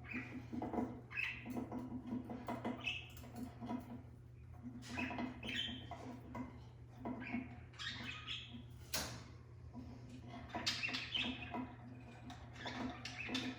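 Budgerigars chattering in a cage: a continuous run of short chirps, warbles and squawks, with scattered sharp clicks and taps.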